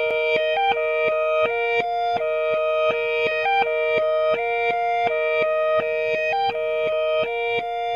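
Music: a short repeating melodic riff over a steadily held note, with an even pulse of about three beats a second.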